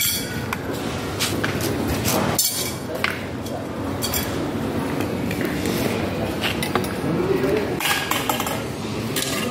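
Thin stainless-steel tubes clinking against each other and the concrete floor as they are handled and pushed into plastic end brackets: a few sharp clinks a second or two apart over steady background noise.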